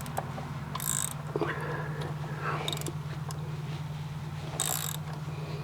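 2004 Chevy Blazer's 4.3-litre V6 idling steadily, freshly started after a thermostat replacement and running cold, with three brief high hisses about two seconds apart over it.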